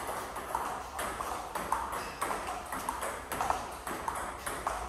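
Table tennis rally: the ball clicking off the rubber bats and bouncing on the Tibhar table in a fast, uneven run of sharp ticks, several a second, each with a brief ringing ping.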